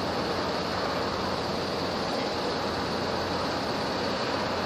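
Steady rushing noise of wind and sea with no distinct events, over a faint steady low hum.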